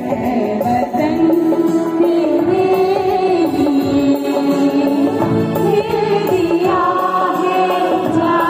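A mixed choir of men and women singing a melody in held, gliding notes, with harmonium accompaniment.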